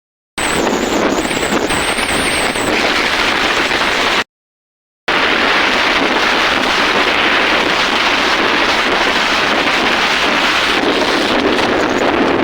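Wind rushing over the phone microphone during a fast ride at highway speed, a steady loud roar of noise. The sound cuts out completely twice, once right at the start and again for about a second around four seconds in.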